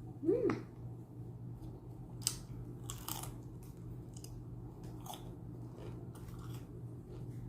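A person biting into and chewing a chicken shawarma wrap close to the microphone, with scattered crisp crunches, over a steady low hum. A brief rising-and-falling pitched sound comes about half a second in.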